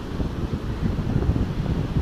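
Strong sea wind buffeting the camera's microphone in uneven low gusts, over a steady wash of breaking ocean surf.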